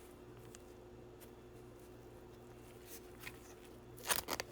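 A steady low hum under a few faint light clicks, then a short cluster of clicks and rustling near the end as trading cards in plastic sleeves and top loaders are handled.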